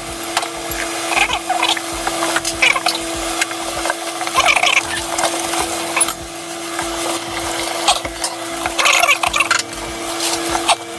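Yakisoba noodles stir-frying in a frying pan, turned with chopsticks and then scraped and tossed with a wooden spatula in repeated strokes over a sizzle. A steady hum runs underneath.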